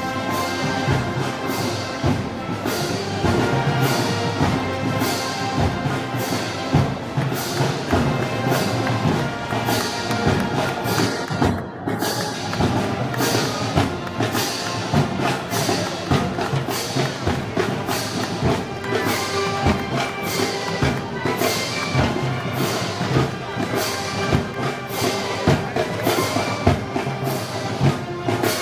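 Festival band music of the Moros y Cristianos kind, with a steady percussion beat.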